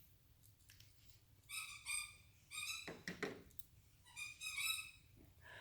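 Quiet, high-pitched squeaky giggles in short clustered bursts: stifled laughter, with one breathier burst about three seconds in.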